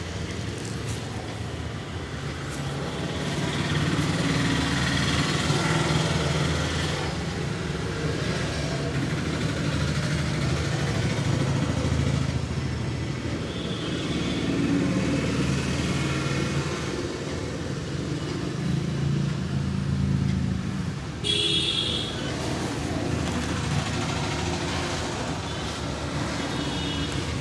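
Road traffic: a steady rumble of motor vehicles that swells and fades as they pass, with a short high-pitched tone about twenty seconds in.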